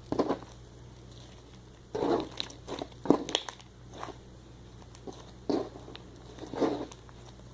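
Homemade slime mixed with shaving cream being squished and kneaded by hand, giving irregular wet, sticky squelches and pops, about six separate bursts.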